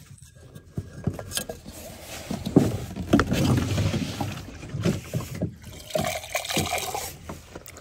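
A blue plastic water jug being handled and shifted: irregular knocks and bumps of hard plastic, with water sloshing inside, loudest about halfway through.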